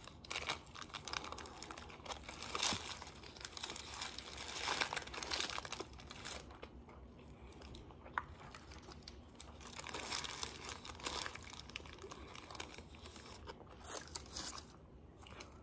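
Paper sandwich wrapper crinkling and rustling, with close-miked biting and chewing of a crispy fried chicken sandwich on donut buns.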